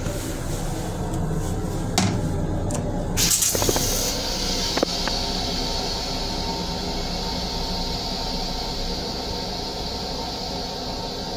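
Steady low rumble of an M7 electric railcar heard from inside its restroom, with a sharp click about two seconds in and a short loud hiss a little after three seconds, after which a steady higher hiss carries on under the rumble.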